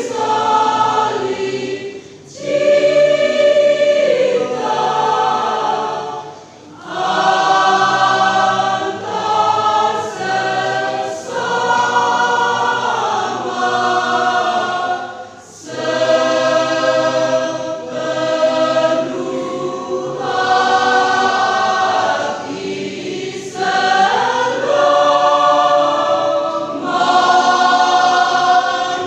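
Church choir singing a sacred song in several voices, in long held phrases broken by short pauses for breath.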